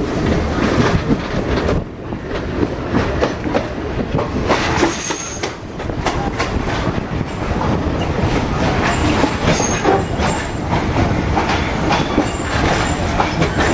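Passenger train rolling at speed, heard from an open window or door of the carriage: steady rumble, wheels clattering over the rail joints, and a few short high wheel squeals from about five seconds in.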